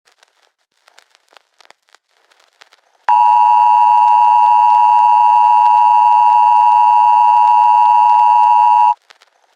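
Emergency Alert System two-tone attention signal: a loud, steady, harsh dual tone that starts abruptly about three seconds in, after a few faint crackles, holds for about six seconds, and cuts off sharply. It signals that an emergency alert message is about to be read.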